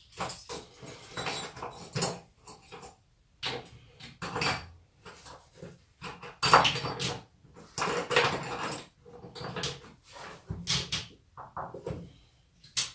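Tools and parts being handled at a workbench: irregular knocks, clatter and rustling, with the sharpest knock about halfway through.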